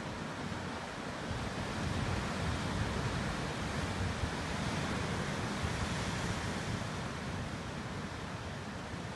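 Ocean surf breaking and washing over rocks, a steady rush of water that swells a little in the middle.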